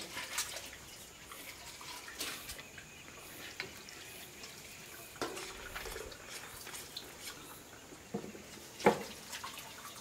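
Water dripping and trickling, with scattered light clicks and knocks of handling; one sharper knock about nine seconds in.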